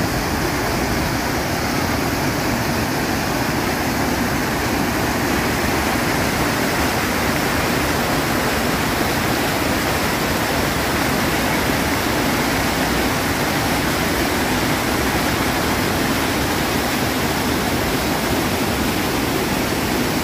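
River water pouring over an overflowing dam's spillway and crashing down its face: a steady rush of water.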